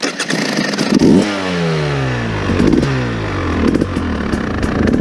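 2019 KTM 300 XC-W TPI dirt bike's single-cylinder two-stroke engine running, blipped with the throttle about four times, the revs falling back after each blip.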